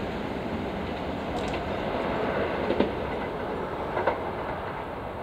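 Toei 5300 series electric commuter train running away over the rails: a steady rolling rumble with a few sharp wheel clicks over rail joints, fading slightly.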